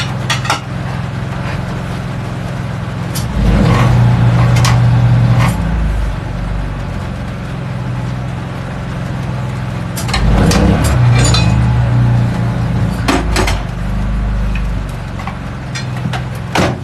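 Portable generator running with a steady low hum that grows louder twice for a couple of seconds, under scattered metal clinks and knocks from tire-changing work on a wheel rim.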